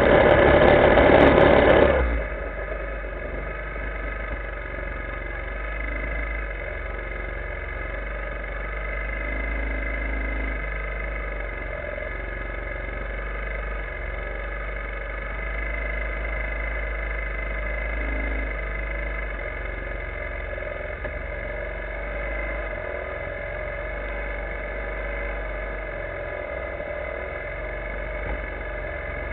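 Linhai ATV engine idling steadily while the quad stands still. A louder rush of noise covers the first two seconds, then the engine's steady drone carries on.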